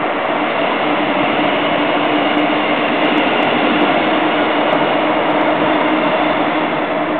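Strong wind blowing steadily, a loud even rushing noise, with a faint steady hum underneath.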